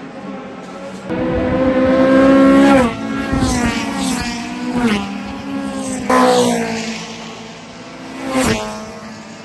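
Honda Civic race cars with high-revving four-cylinder VTEC engines accelerating down the main straight. The engine note climbs and drops back several times as they shift up through the gears, and one car passes close, its note falling sharply, near the end.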